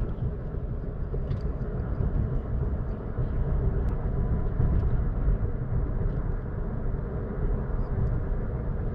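Steady road and engine noise of a moving car heard from inside the cabin, with a few faint clicks.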